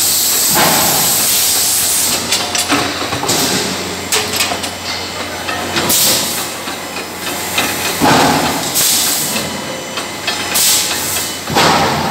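Electric screw forging press at work forging gear and clutch parts. A loud hiss stops about two seconds in, short bursts of hiss come back every few seconds, and knocks and clanks fall in between.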